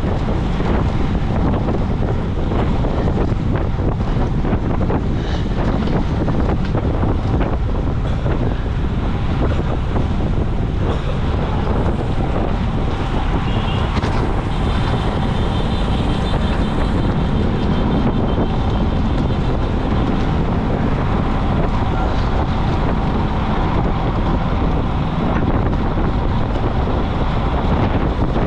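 Steady heavy wind rumble on a bike-mounted camera's microphone as a road bicycle rides at racing speed.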